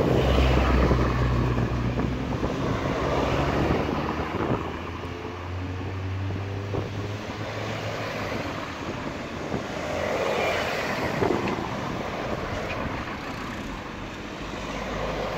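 Cars driving over the open level crossing close by: engine hum and tyre noise swelling and fading several times as they pass.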